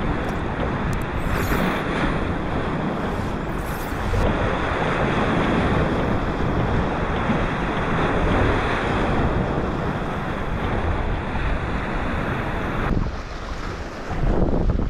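Strong wind buffeting the microphone over the wash of sea waves breaking on the rocks of the shore.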